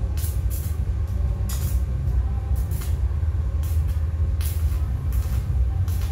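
Electric arc welding: short, irregular bursts of arc hiss and crackle, several tacks or short beads in a row, over a steady low hum.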